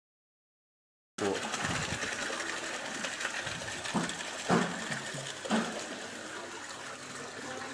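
Soybean washing machine running, a steady mechanical whir with water, starting suddenly about a second in, with three sharp knocks in the middle.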